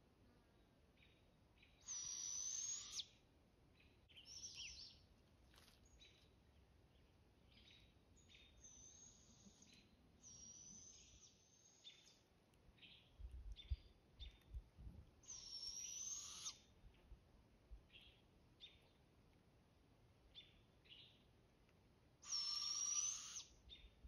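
Juvenile barred owls giving their raspy, hissing begging screeches, about a second long each with a thin high whistle over the top. The young birds call back and forth, with five loud screeches and fainter ones between.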